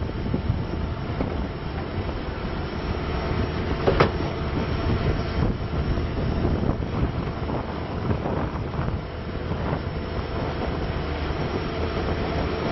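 Bobcat T770 skid steer loader's diesel engine running, with the rattle of the machine working on its rubber tracks, and one sharp metallic clank about four seconds in.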